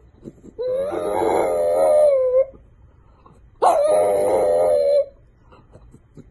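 French bulldog howling twice: a first howl of about two seconds and a second of about a second and a half, each wavering in pitch.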